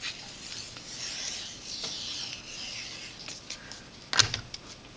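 Glue bottle's applicator tip rubbing across cardstock as glue is spread, a soft scratchy hiss. About four seconds in, a sharp knock as the plastic glue bottle is set down into a small plastic cup, followed by a few light clicks.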